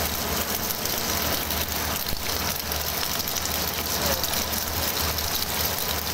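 Kurkure extruder machine running: a steady mechanical noise with a constant low hum and a hiss.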